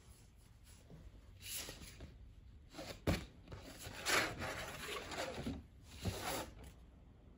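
Watercolor brush scrubbing and picking up paint in a palette: a few short, quiet scratchy strokes, with a single light tap about three seconds in.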